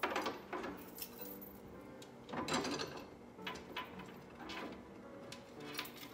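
Light knocks and clinks of a decorative bowl and small candlesticks being handled and set down on a wooden hutch shelf: a few separate taps, the clearest at the start and about two and a half seconds in.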